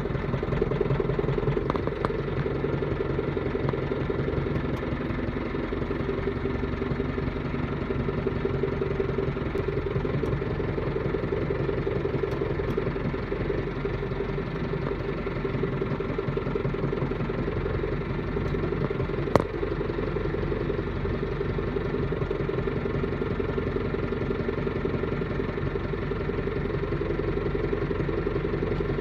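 Loader tractor engine running steadily, with one sharp metallic clank about two-thirds of the way through.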